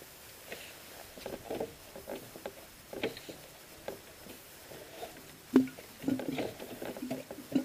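Rotax 912 dry-sump oil tank gurgling as the propeller is pulled through by hand: an irregular burp, gurgle or murmur of air pushed up the return line from the sump, the sign that the remaining oil has been moved back into the tank. The gurgles get louder about halfway through.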